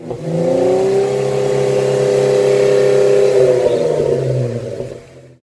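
An engine revved up quickly and held at high revs for about three seconds, then dropping back and fading out, used as a channel logo intro sound.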